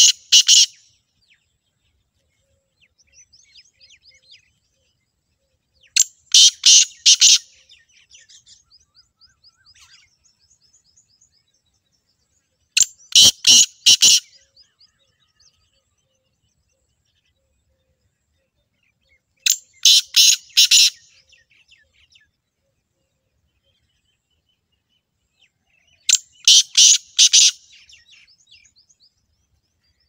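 Black francolin (black partridge) calling: a phrase of about four loud notes, repeated five times at intervals of about six and a half seconds. Faint chirps of other small birds sound between the calls.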